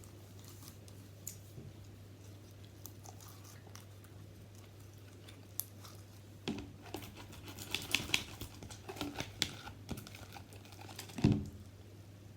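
Slime being squished and worked by hand: after a quiet start, a run of small crackling clicks and pops begins about halfway in, with one louder thump near the end. A steady low electrical hum runs underneath.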